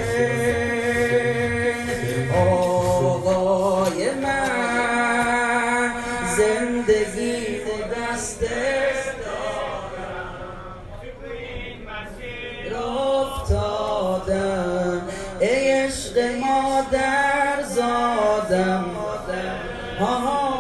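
Male voice chanting a noha, a Shia lament, in long held melodic notes with a wavering vibrato. It grows softer for a moment about halfway through.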